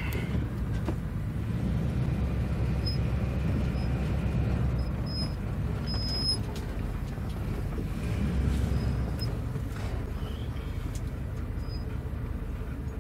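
Class C motorhome's engine running, heard from inside the cab as the rig is maneuvered on soft dirt trying to level out; it pulls harder for several seconds after the start and again briefly about eight seconds in.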